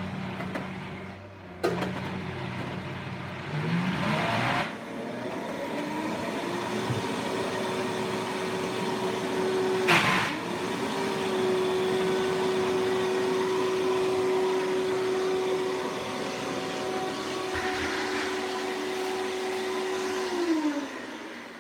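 High-powered countertop blender blending a thick avocado and cocoa mousse mixture. The motor starts low, speeds up to a steady whine about four seconds in, and dips briefly with a sharp knock around ten seconds in. It winds down near the end.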